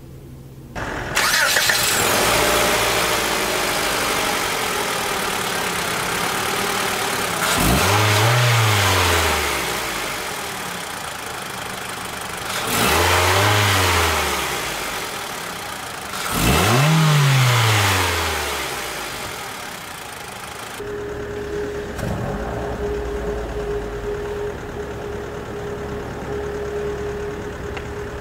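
2017 Mitsubishi ASX's four-cylinder MIVEC petrol engine running, blipped three times, each rev rising and then falling back. After about 21 seconds it settles to a quieter steady idle with a light steady hum.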